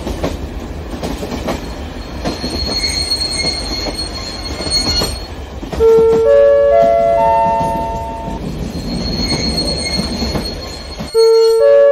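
Large-scale model DF4D diesel locomotive and a long train of passenger cars rolling along the track: a steady rumble with rail-joint clicks and a high wheel squeal twice. About six seconds in, and again near the end, a loud sequence of held electronic tones stepping up in pitch, like a chime tune, sounds over it.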